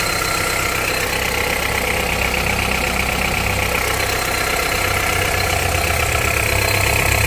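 Honda CR-V 2.4-litre inline-four engine idling cold with a diesel-like clatter, the cold-engine knock under investigation. A low hum grows louder near the end.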